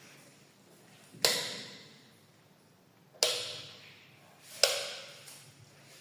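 Three sharp knocks of hard objects, each with a brief ringing decay; the first two come about two seconds apart, the third a second and a half later.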